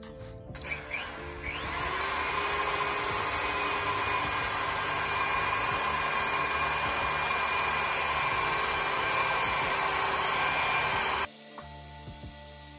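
Electric drill spinning a small foam buffing pad against a jet ski's fiberglass gelcoat hull, polishing off oxidation. The drill's high whine rises as it speeds up over the first two seconds, runs steadily, then cuts off suddenly about eleven seconds in.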